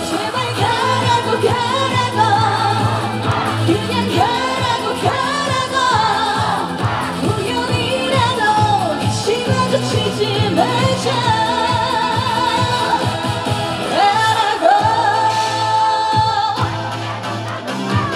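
Upbeat trot song performed live: a sung melody with vibrato over a steady bass line and drum beat.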